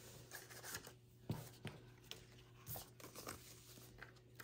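Faint rustling of paper being handled, with a few light taps and clicks scattered through, over a low steady hum.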